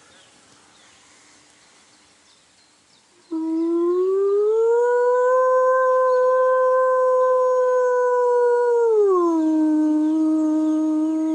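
A man imitating a wolf's howl through cupped hands. After about three seconds of quiet, one long howl starts about three seconds in, rises in pitch and holds, then drops to a lower steady note near the end.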